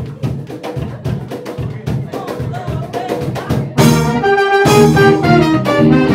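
Live band music. Drums and hand percussion keep a rhythm alone at first. About four seconds in, the brass section (trumpet and a low brass horn) comes in loudly with held notes over the band.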